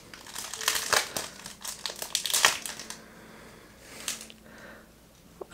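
Foil trading-card pack wrapper crinkling as it is handled and opened for about three seconds, then going quieter.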